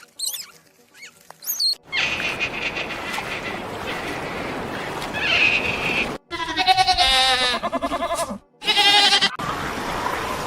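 Farm animals bleating in a run of short clips: a quavering call at about six seconds that lasts two seconds, then a shorter one near nine seconds, with an open-air background between them.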